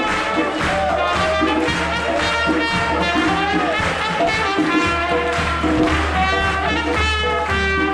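Trumpet playing a lively tune live, with an acoustic guitar strumming underneath and a crowd clapping along.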